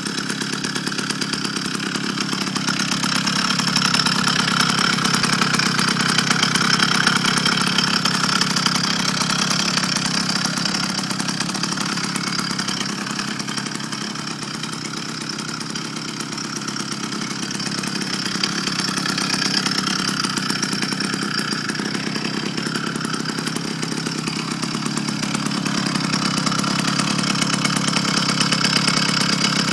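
Small motorized-bicycle engine idling with a weird noise that the owner suspects comes from a clutch that is not fully engaging. The engine runs steadily, swelling louder and softer over several seconds at a time.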